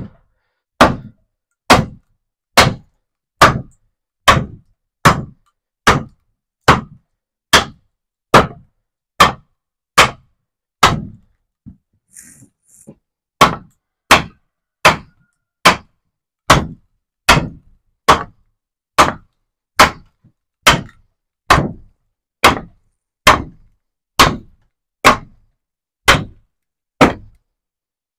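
Wooden mallet striking the back of a froe over and over, driving it down to split a green-wood leg blank. Steady wooden knocks about once a second, with one short break a little before the middle.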